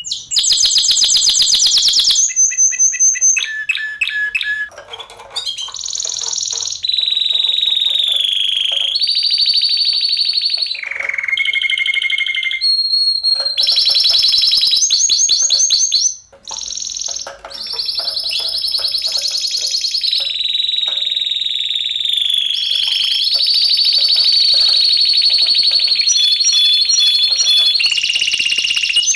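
Spanish timbrado canaries singing: a long, loud song of rapid trills and rolls alternating with held, ringing notes. It breaks off briefly about sixteen seconds in and then carries on.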